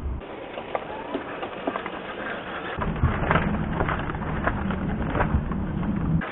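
Plastic vapor-barrier sheet crinkling and crackling in many small irregular clicks as its excess is sliced off with a sharp blade. A low steady hum joins about three seconds in.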